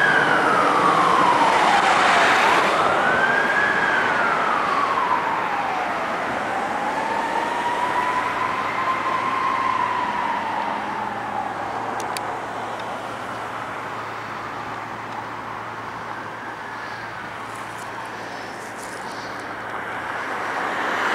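Emergency vehicle sirens on a fire engine and an ambulance in a slow wail, rising and falling in long sweeps and gradually fading as the vehicles move away. A brief rushing noise swells near the end.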